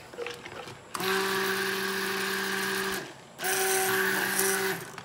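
Stick blender running in two pulses, about two seconds and then about a second and a half, with a steady motor hum that starts and stops sharply. It is blending a slushy coconut milk and oil soap mixture until it is smooth. A few light clicks come first.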